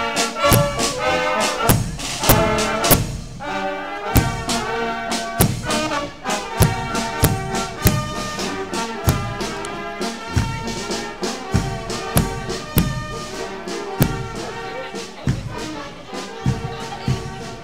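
A brass marching band plays a march, with trumpets, trombones and tubas over a steady bass-drum beat. It grows slowly quieter near the end as the band moves off.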